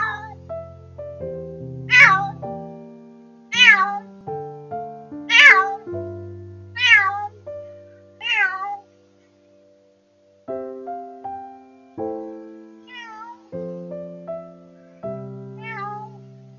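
A white cat meowing repeatedly: five loud calls, each rising then falling in pitch, about a second and a half apart, then after a short pause two fainter ones near the end. Soft piano music plays underneath.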